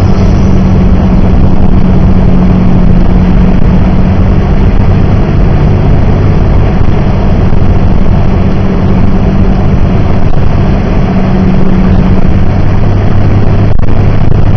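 Inside a moving car's cabin: steady engine drone under a continuous rush of tyres on the snowy highway. The low hum changes note about twelve seconds in.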